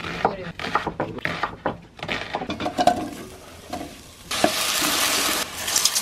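A kitchen knife chops potatoes on a wooden cutting board, a run of sharp knocks. About four seconds in, a loud sizzle starts suddenly as pork and potato pieces fry in a hot metal pot, then settles to a quieter steady sizzle.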